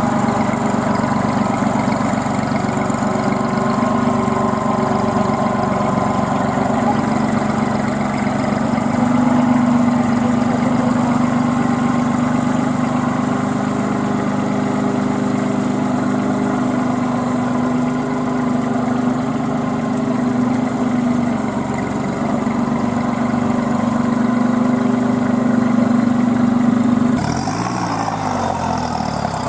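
Kubota B2441 compact tractor's three-cylinder diesel engine running steadily under heavy load as the tractor labours through deep mud on cage wheels. Near the end the engine note shifts, its pitch rising and falling.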